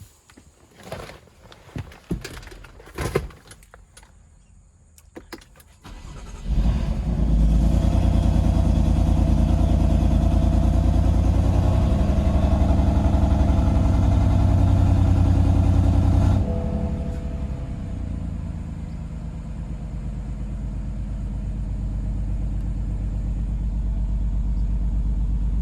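BMW M4's twin-turbo inline-six starting after a few clicks and knocks, running loudly for about ten seconds, then settling to a quieter idle. It is running with a huge misfire, which the owner traced to a faulty spark plug.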